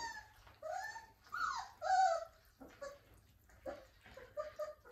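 Four-week-old Irish Setter puppies whining, a run of high cries sliding up and down over the first two seconds, then a few short, fainter cries near the end.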